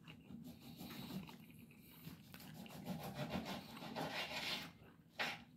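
Faint close-up eating sounds: a mouthful being chewed while a plastic fork scrapes and scoops through fried rice on a plate, a busy run of small scratchy ticks that grows a little louder in the second half. A short, sharper sound comes near the end.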